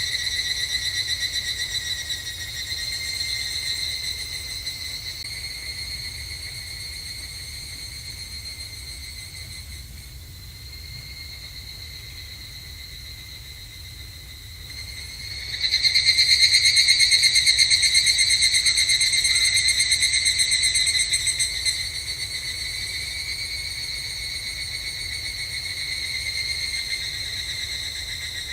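Higurashi (evening cicadas, Tanna japonensis) calling: ringing, rapidly pulsed trills that fade away over the first dozen seconds, then a louder call starting about halfway through and dropping back after several seconds.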